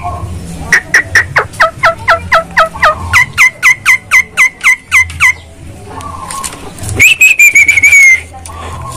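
Javan myna calling: a rapid run of about twenty short, down-slurred whistled notes, about four or five a second, then after a pause one long, slightly wavering whistle.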